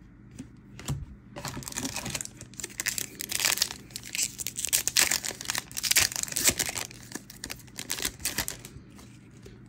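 A Magic: The Gathering booster pack's foil wrapper being torn open and crinkled, a dense irregular crackling that starts about a second and a half in and tails off near the end.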